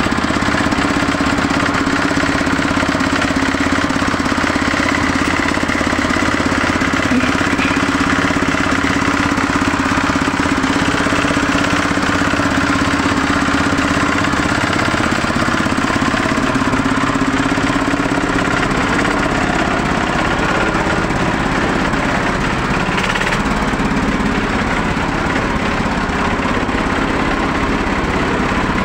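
Diesel engine of a heavy-haul hydraulic axle trailer rig running steadily at close range as the rig moves slowly under a 240-ton transformer load.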